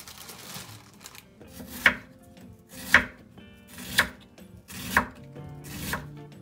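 Kitchen knife cutting food on a cutting board with slow, deliberate strokes, about one a second. Each cut is a short slicing rasp that ends in a sharp knock as the blade meets the board, five in all.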